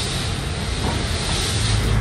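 Steady road-traffic noise with a low engine rumble, and a hiss that swells about a second and a half in.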